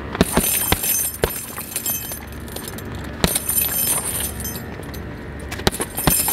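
Boxing gloves punching an RDX heavy bag, with a quick run of hits in the first second and a half and scattered single hits later. The bag's hanging chain jangles with the strikes.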